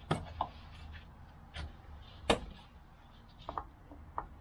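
Clips and plastic parts of a car's air intake housing being worked by hand: about six short sharp clicks and knocks, the loudest a little over two seconds in.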